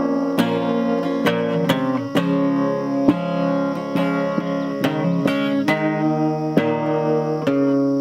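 Acoustic guitar strumming chords in the instrumental stretch of a song, each strum ringing on.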